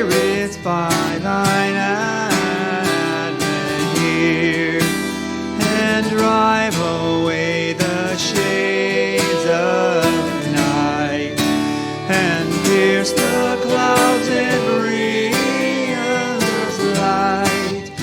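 Worship music: acoustic guitar strumming steadily under a singing voice.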